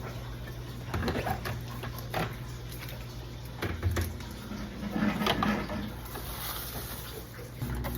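Scattered light knocks, clicks and rubbing of things being handled and set down during fridge cleaning, over a steady low hum.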